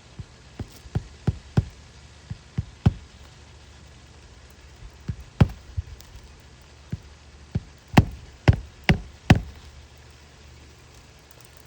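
A series of about seventeen sharp knocks at irregular intervals, in two bunches, the later ones the loudest.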